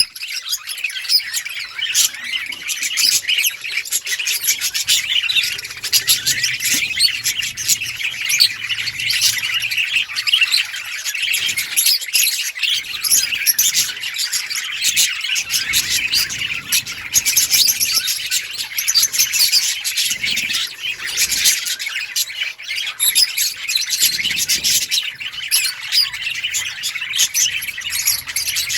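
Budgerigars chirping and chattering without a break, a dense stream of high chirps.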